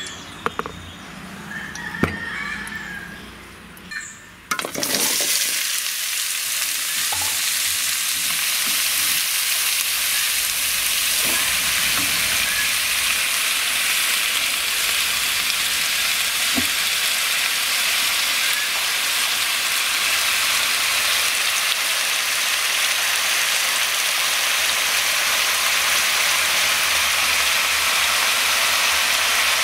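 A few knocks, then, about four seconds in, chopped vegetables, brinjal among them, hit hot oil in an aluminium kadai and set up a sudden, steady sizzle that holds as they fry.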